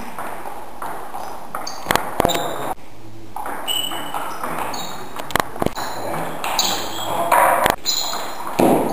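Table tennis rally: the ball knocking off the bats and the table in a run of sharp, irregular clicks.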